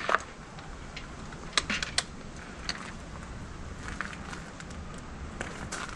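Sharp clicks of a key being turned in an e-bike battery's key switch, followed by a few sparse faint ticks over a low steady hiss.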